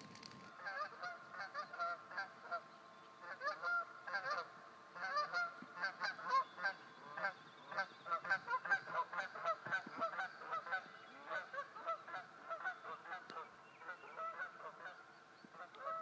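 Two geese flying overhead and honking, with many short honks in quick series that fade away near the end.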